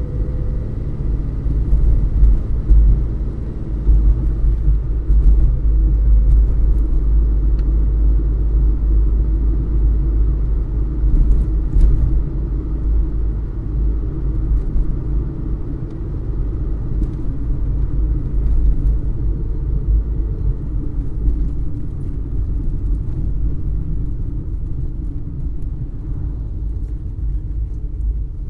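Car engine running steadily, heard from inside the cabin: a low rumble with a faint engine hum above it that fades after about twenty seconds.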